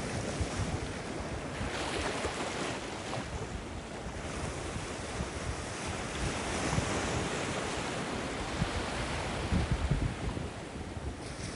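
Ocean surf breaking and washing in the shallows, a steady rushing that swells and eases with the waves. Wind buffets the microphone in gusts, loudest about ten seconds in.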